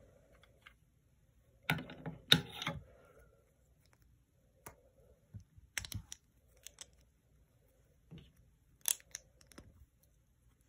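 Plastic LEGO pieces clicking and clattering as they are handled and pulled apart, with a dense cluster of sharp clicks about two seconds in and scattered single clicks after.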